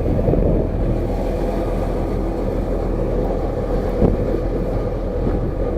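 Vehicle engine running steadily at an even drone, with wind noise.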